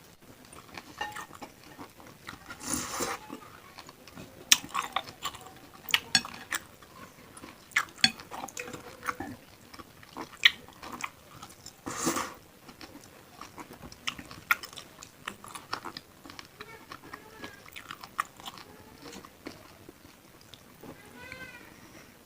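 Close-miked eating of bakso meatball soup with beef tetelan: wet chewing and biting, with cutlery clinking against the bowl as many short sharp clicks. Two longer noisy sounds come about 3 and 12 seconds in.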